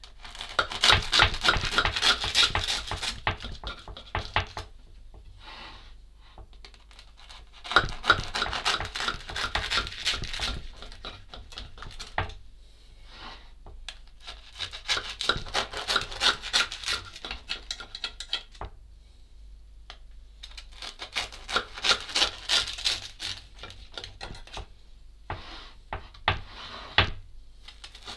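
Serrated knife sawing through the crusty sesame bread top of a giant layered burger, in four bouts of rapid back-and-forth strokes a few seconds each with pauses between, and a few short strokes near the end.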